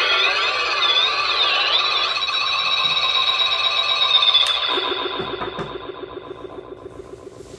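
Circuit-bent 1978 Texas Instruments Speak & Spell giving out distorted, glitchy electronic tones. For the first couple of seconds the pitches warble up and down. They then hold steadier and fade over the last few seconds, and a low pulsing tone sets in about five seconds in.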